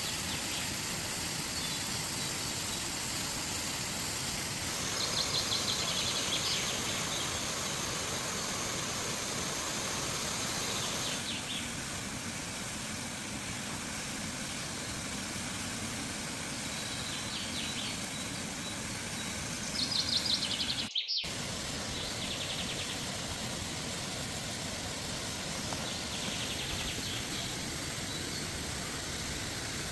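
Steady rushing noise of falling water and boiling, with small birds chirping a few times over it; the sound drops out for a moment about two-thirds of the way through.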